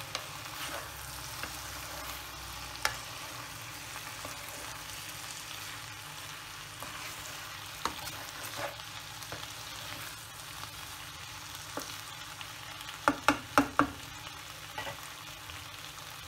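Half-cooked strips of carrot, raw banana, yam and beans sizzling in a pan with coconut oil and a little water while being stirred with a spoon, with scattered small scrapes and clicks. A little after halfway, there is a quick run of about five sharp knocks.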